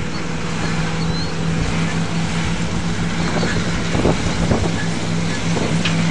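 A dump truck and a motorhome driving at speed some distance off, their engines a steady drone, with wind noise on the microphone.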